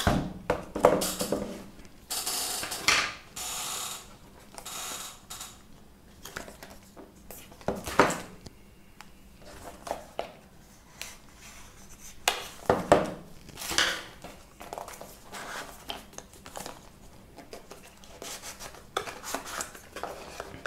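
A metal blade slitting the seal of a small cardboard box, and the box being handled and opened: scattered scrapes and clicks, with a couple of sharper knocks.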